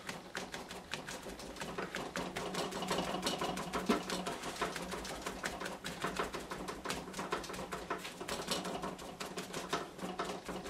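Sponge dabbing acrylic paint onto paper clipped to a drawing board: rapid, irregular soft taps, several a second, as the paint is stippled on.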